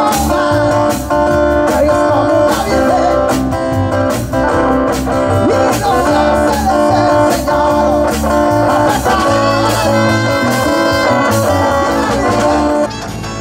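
Rock band playing live, guitars over a steady drum beat; the level drops shortly before the end.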